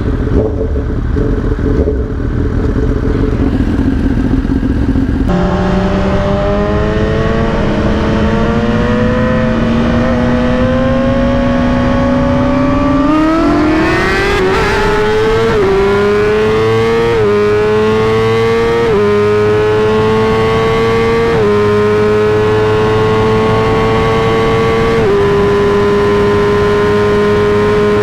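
A motorcycle engine, about five seconds in, starts pulling hard and then accelerates up through the gears, its pitch climbing and dropping back at each upshift, about five shifts in all.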